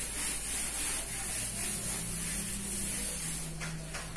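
Whiteboard being erased by hand: steady rubbing over the board's surface.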